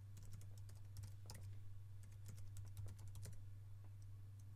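Faint typing on a computer keyboard: quick, irregular key clicks over a steady low hum.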